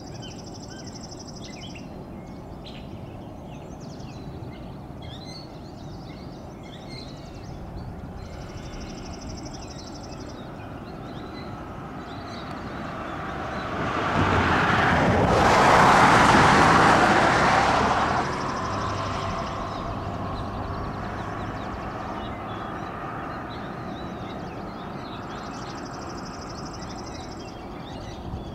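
Diesel-hauled CSX freight train approaching, its locomotive running with a steady low rumble. A loud rushing noise swells and fades about halfway through. Faint bird chirps come and go.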